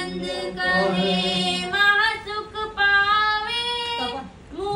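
A woman singing a devotional bhajan in long, drawn-out notes that waver and bend in pitch, with short breaks for breath between phrases.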